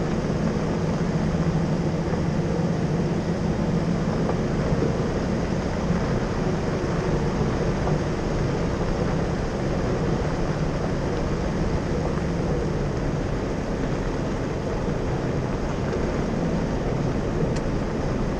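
Jeep driving steadily on a gravel dirt road: engine running at a constant speed under the rumble of tyres on gravel.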